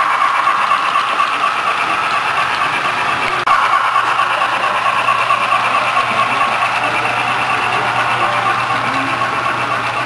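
HO-scale model freight cars rolling past on metal track: a steady whirring rumble of small wheels on rail. It breaks off for an instant about three and a half seconds in.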